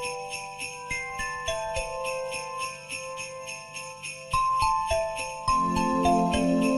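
Festive music with sleigh bells jingling on a steady beat under a bell-like melody of held notes; a fuller lower accompaniment comes in about five and a half seconds in.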